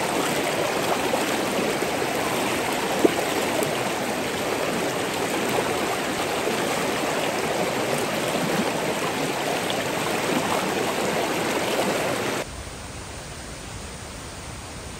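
Fast mountain stream rushing over stones, running high after a typhoon, a steady dense wash of water noise. There is one short sharp tap about three seconds in, and near the end the water sound drops abruptly to a quieter, softer hiss.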